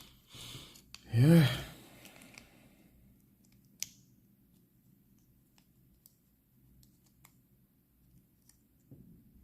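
Sparse, faint small clicks and taps of a hair trimmer's small parts and screws being handled during disassembly, one sharper click about four seconds in.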